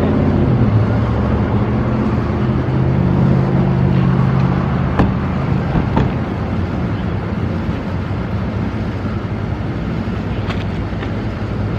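A vehicle's engine running steadily as it drives, with a few short sharp clicks.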